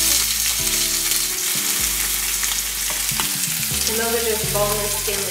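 Chicken breasts sizzling in hot oil in a nonstick frying pan, with the occasional click of metal tongs against the pan as the pieces are moved.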